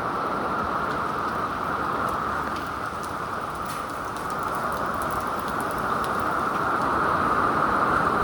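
Steady radio static hiss on a NOAA Weather Radio channel with no voice on it, growing a little louder toward the end, with faint crackles.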